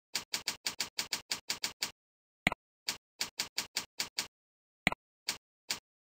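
Computer keyboard keys clicking in quick runs of typing. The typing is broken twice, about two and a half seconds in and again near five seconds, by a single sharper mouse click as the next form field is selected.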